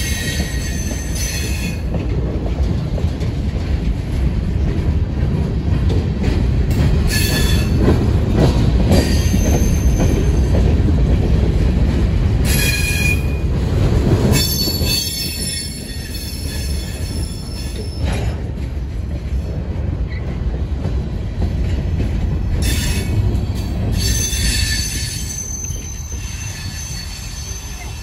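Freight train of covered hopper cars rolling past: a steady heavy rumble of wheels on rail, with high-pitched wheel squeal that comes and goes several times. The rumble drops away near the end as the last car clears.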